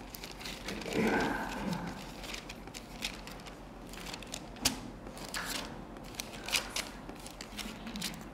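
Pages of a Bible being leafed through and turned: a run of soft paper rustles and crisp page clicks, louder about a second in, with a sharp click about halfway.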